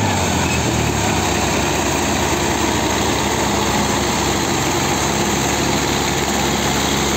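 Diesel engines of a Solis 5015 and a Mahindra 555 tractor running under load as they pull against each other in a tug-of-war chained together. The engine note drops a little at the start, then holds steady.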